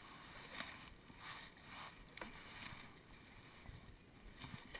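Faint water sounds of a kayak paddle: several soft swishes and small drips as the blades dip and lift in shallow water.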